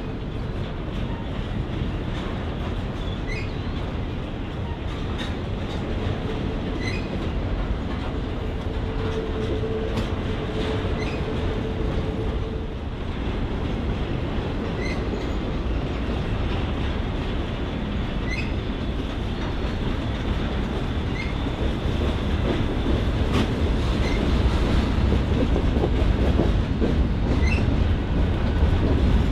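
Freight train rolling past, a steady rumble of wheels on rail with clicking over the rail joints, growing louder toward the end. A thin wheel squeal is held for several seconds in the first half, and short high chirps recur every second or two.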